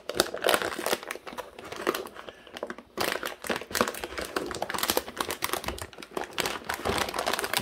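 Clear plastic bag around a graphics card crinkling and crackling as hands grip it and lift the card out of its box. A dense, irregular run of crackles goes on throughout.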